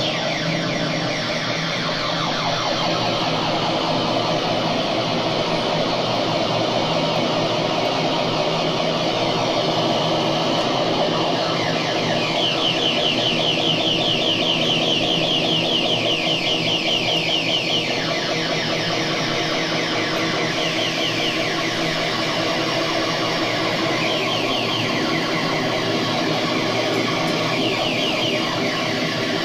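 Homemade dub-siren style dual oscillator played through effects pedals, giving a dense, steady electronic drone. From about twelve to eighteen seconds in, a fast-repeating, siren-like chirping rises over the drone, and it returns briefly a few times near the end.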